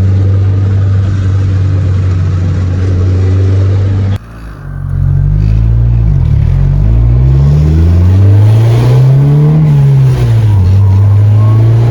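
Turbocharged Honda B18C four-cylinder in a 1992 Civic hatch running at a steady speed, then, after a sudden break about four seconds in, revving up and down several times as the car is driven hard.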